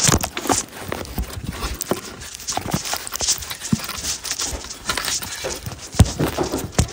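West Highland white terrier puppies bumping and pawing at a floor-level camera and tipping it over: irregular scrabbling, taps and knocks right on the microphone, with a sharp thump near the end.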